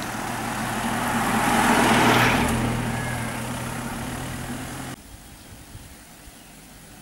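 A vehicle drives past on a paved road: engine hum and tyre noise swell about two seconds in and then fade. About five seconds in the sound drops suddenly to a much quieter outdoor background.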